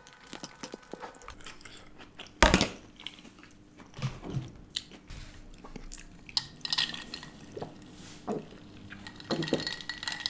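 Close-miked chewing of a mouthful of noodles and vegetables, with small clicks and taps of a spoon and plastic takeaway containers. One louder knock comes about two and a half seconds in.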